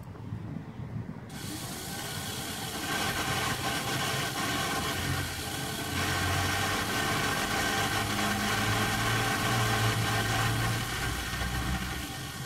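A motor running steadily with an even hum, starting suddenly about a second in, growing louder a few seconds later and easing off near the end.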